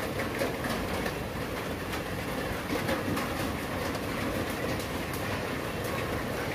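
Heavy rain falling, a steady, even rush of noise.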